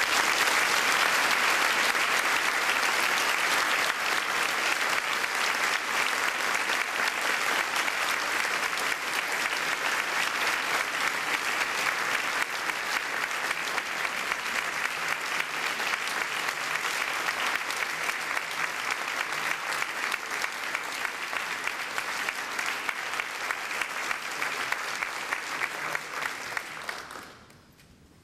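Audience applauding, a long steady round of clapping that eases slowly and dies away near the end.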